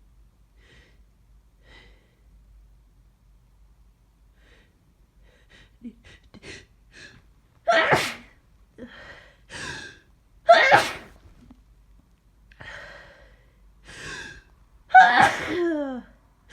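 A person with a cold sneezing three times in a row, each loud sneeze preceded by short catching inhales, the last trailing off with a falling voice. The first few seconds hold only faint breathing.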